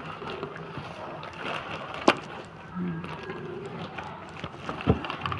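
Quiet handling noise as a newborn is dressed: plastic gown and cloth rustling, with a sharp click about two seconds in and a low thump near the end.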